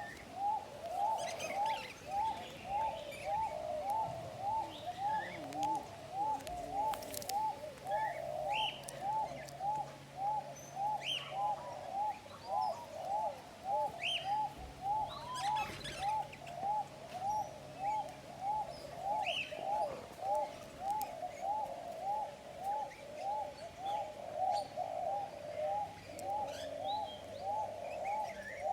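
A bird repeating one short rising-and-falling call evenly, about one and a half times a second, with higher chirps from birds mixed in every couple of seconds.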